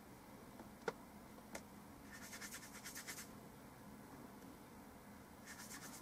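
Faint scratchy strokes, as of a stiff paintbrush scrubbing: a quick run of them about two seconds in and a shorter run near the end. A single sharp click comes about a second in.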